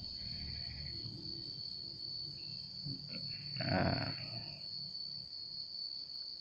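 Metal lathe setup running with a low hum under a steady high-pitched whine; the hum dies away about five seconds in.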